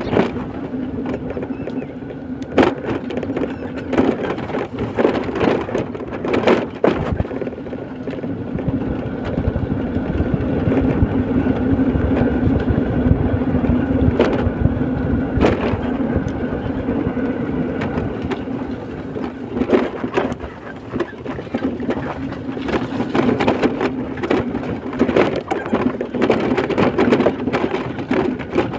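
A road vehicle running steadily, with a constant engine and road drone. Frequent sharp knocks and rattles sound through it, clustered in the first several seconds and again in the last third, as if jolting over a rough, unfinished road surface.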